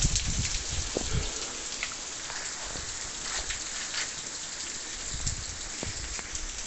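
Steady rain falling, an even hiss with sharp ticks of nearby drops scattered through it. A low rumble sounds during the first second.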